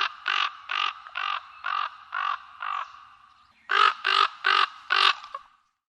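Raven calling: a run of harsh caws about two a second that fade away, then after a short pause four louder caws in quick succession.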